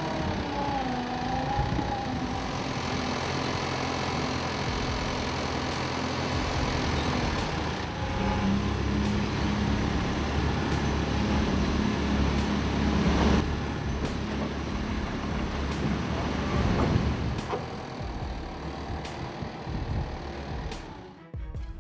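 A heavy diesel vehicle or machine running and working, its engine note shifting in pitch, with a brief sharp clank or hiss about two-thirds of the way through. The sound cuts out abruptly just before the end.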